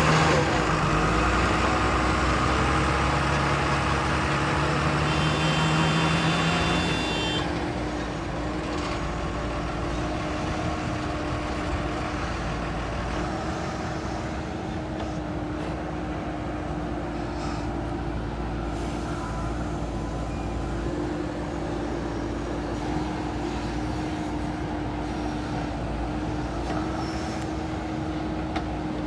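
Heavy diesel engine of a backhoe loader or dump truck running under load for about the first seven seconds, with a low rising drone and a brief high whine. It then eases back to a steady run.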